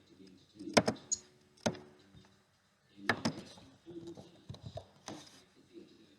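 Lego Technic plastic parts being handled and fitted together: a series of sharp clicks and knocks, several in quick pairs, some with a short low ring after them.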